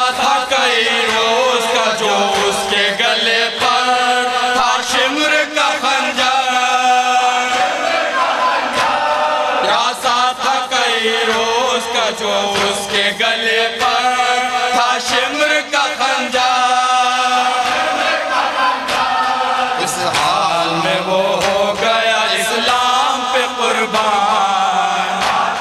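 A group of men chanting a noha, a Shia mourning lament in Urdu, in unison into a microphone. The voices carry a slow, drawn-out melody with held notes.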